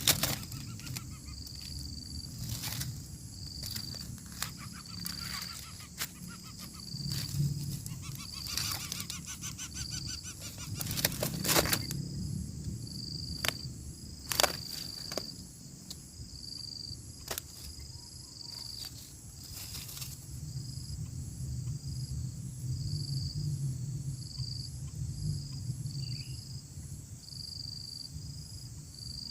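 Outdoor ambience: an insect chirps steadily in rapid, even high pulses throughout. Over the first twenty seconds there are scattered rustles and clicks, with a short rapid rattle about nine seconds in, over a low rumble.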